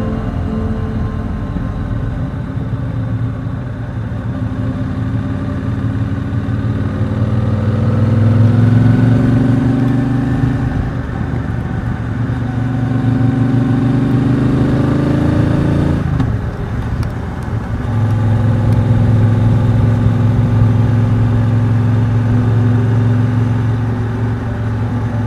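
Triumph Speedmaster's 1200 cc parallel-twin engine pulling under acceleration, its pitch rising slowly for about ten seconds. About sixteen seconds in the pitch drops sharply with a brief lull as it changes up a gear, and then it runs at a steady pitch.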